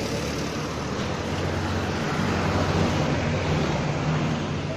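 Bucket truck's engine running steadily, a low even drone under a wash of wind noise on the microphone.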